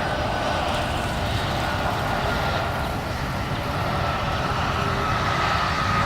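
Airbus A330-200 jet engines heard from the ground: a steady rumble with a whine slowly falling in pitch.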